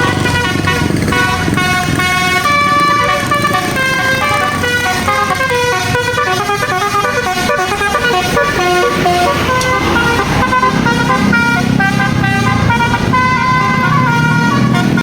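Bus 'telolet basuri' musical horn playing a fast melody of steady notes in quick succession, one after another without a break. A lower drone joins underneath for about two seconds past the middle.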